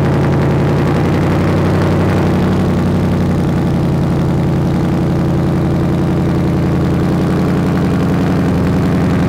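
A 2019 Ford Mustang GT's 5.0-litre Coyote V8 idling steadily through its quad exhaust just after a cold start, warming up; the idle pitch shifts slightly about three and a half seconds in.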